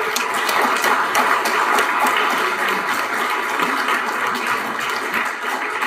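Audience applauding: many hands clapping together, starting suddenly and going on steadily.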